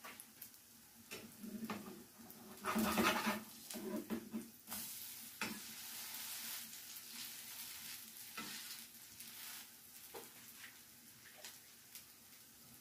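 Potato pancakes sizzling in butter and oil in a nonstick frying pan, as a slotted spatula scrapes under them and turns them over. There are scraping and knocking strokes about two to five seconds in, then a steady sizzle with a few light taps.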